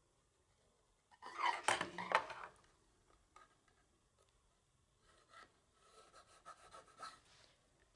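Quiet workshop handling noises as a reference line for the router bit is marked on the router table fence: a short clatter about a second in, then faint pencil scratching near the end.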